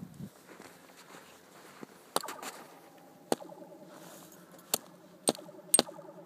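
A taut metal cable struck about five times, each sharp hit followed by a ringing tone. It makes the laser-blaster 'pew' sound effect. The strikes come from about two seconds in onward.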